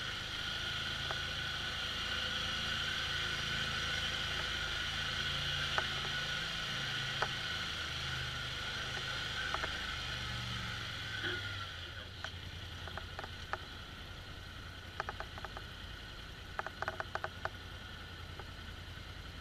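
Polaris Sportsman ATV engine running at low speed over slickrock, its note rising and falling with the throttle for the first twelve seconds or so. It then settles to a quieter, steady lower run, with scattered clicks and rattles from the machine.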